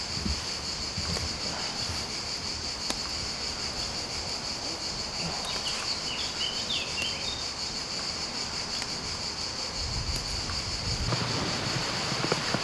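A steady, high-pitched buzz of insects singing in the grass, with a few faint chirps around the middle and some low rustling near the end.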